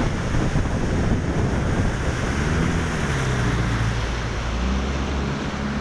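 Bass boat's outboard motor running at speed, under a heavy rush of wind across the microphone and water hissing past the hull. The engine note sags a little about halfway through and picks up again near the end.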